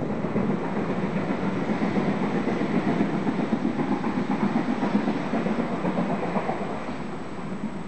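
Steam-hauled passenger train drawn by Britannia class locomotive 70013 Oliver Cromwell going away down the line: a steady rumble and clatter of wheels on rail that slowly fades toward the end.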